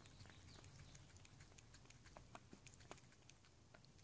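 Faint, quick, irregular lapping clicks of a cat drinking from a bowl.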